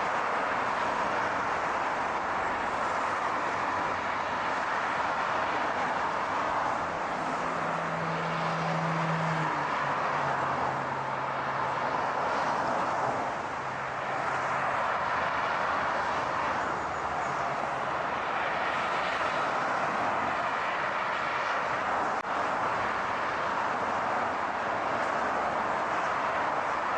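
Steady rushing car and road noise. A low hum comes in about seven seconds in, steps down in pitch a couple of seconds later and fades out around eighteen seconds.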